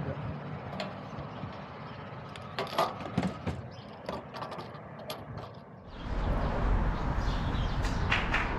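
Refuelling at a petrol pump: scattered clicks and knocks of the fuel nozzle and filler cap over a low background. About six seconds in, a louder, steady low rumbling noise starts suddenly.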